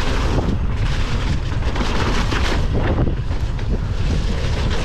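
Heavy wind buffeting on the microphone over the rumble of a mountain bike's tyres on wet, muddy singletrack, with frequent knocks and rattles from the bike over the rough trail.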